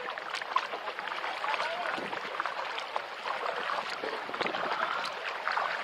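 Sea water splashing and lapping around a kayak as it is paddled: a continuous wash of small splashes and drips with no single loud event.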